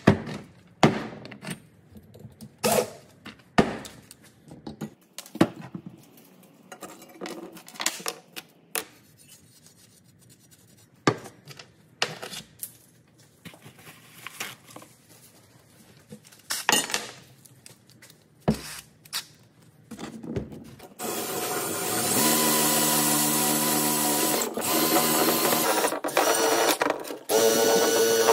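Scattered sharp clicks and light knocks of the metal parts of a fuel sending unit being handled. About 21 seconds in, a drill fitted with a wire wheel brush starts and runs steadily, and its pitch shifts near the end as the wheel is worked against the unit's rusty steel bracket.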